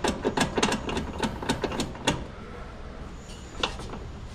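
Socket ratchet clicking in quick strokes as bolts on the front strut and steering knuckle are run in, stopping about two seconds in; a couple of single clicks follow near the end.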